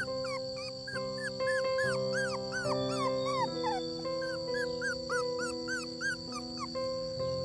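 Puppy whining and crying in a quick run of short, high, arching whimpers, about three a second, some sliding downward. Background music with sustained chords runs underneath.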